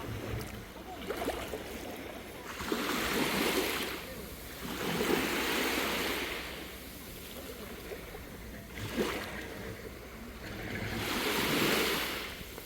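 Small sea waves on a calm sea washing in and drawing back, in three slow swells of hiss.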